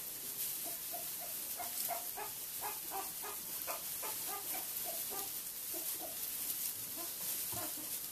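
Newborn Tamworth x Large Black piglets grunting: many short, high little grunts in quick, irregular succession from several piglets, busiest in the middle.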